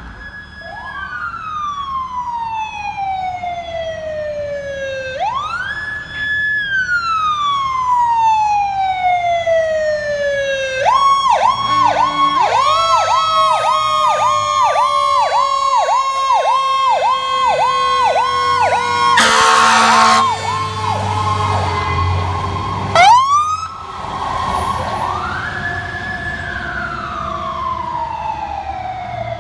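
Fire truck sirens. A wail rises and falls slowly twice, then switches to a fast yelp of about two cycles a second while a second siren tone slides slowly down beneath it. An air horn blasts for about a second roughly two-thirds of the way through, and the slow wail returns near the end.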